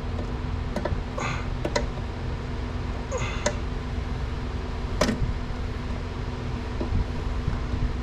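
A few sharp metallic clinks and knocks of hand tools and parts being handled during mechanical disassembly, over a steady low hum.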